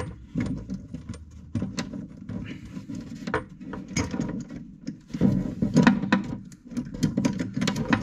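Irregular light metallic clinks, rattles and rubbing from hand-fitting a basin tap's small back nut from below the worktop, with the braided flexi hoses jostling against each other.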